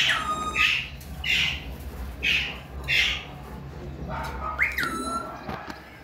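Pet Alexandrine parakeet screeching: a string of short harsh calls that fall in pitch, about one every 0.7 s, then near the end a whistled call that rises and settles on a held note.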